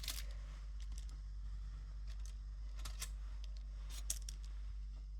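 Light, scattered clicks and rustles of kitchen items being handled, over a steady low hum; one click about four seconds in stands out.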